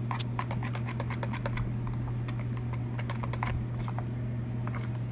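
A glue and shaving cream mixture being stirred in a container, making quick, irregular little clicks and taps, over a steady low hum.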